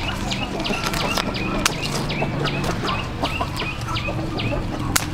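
Chickens clucking in a rapid, even series, about three sharp clucks a second.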